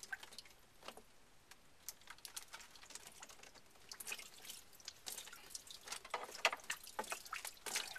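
Water dripping and splattering in irregular drops from an opened 3/4-inch PEX hot water line, with a few louder splashes. The water is cold water back-feeding through the drained hot line from leaking tub faucet valves upstairs.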